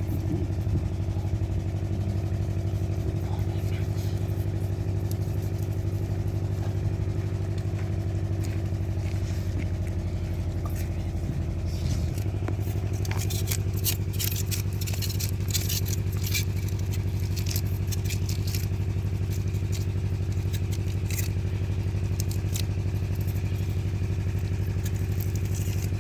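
An engine running steadily at an even speed, with scattered clicks and light clatter from about halfway through.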